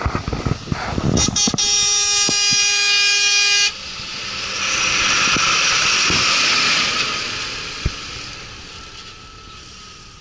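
Mercedes-Benz Zetros 4x4 truck sounding its horn in one steady blast of about two seconds that stops abruptly. The truck then passes close by in a loud rush of noise that slowly fades.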